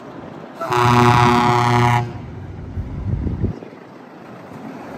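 Heavy-haul truck's air horn sounding one loud blast of a little over a second, a full chord of tones. Truck engine and road traffic noise run underneath.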